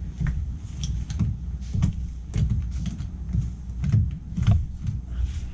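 Sheet metal at the cut opening of a furnace plenum being bent outward by hand: a run of irregular clicks, knocks and light clanks, about two a second, over a low steady rumble.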